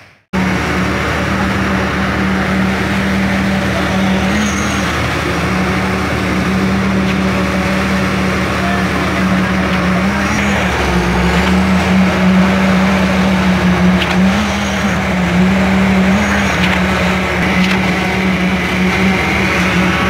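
Concrete poker vibrator running with a steady high hum while it is worked into freshly poured concrete, its pitch dipping briefly several times as it is loaded.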